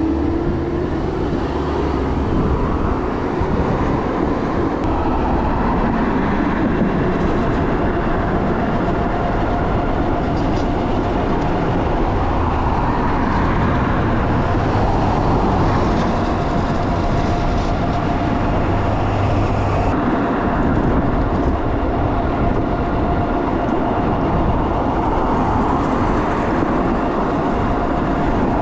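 Juiced HyperScrambler 2 e-bike on the move: steady wind and road noise from riding, with a faint steady whine throughout that is typical of its hub motor under power.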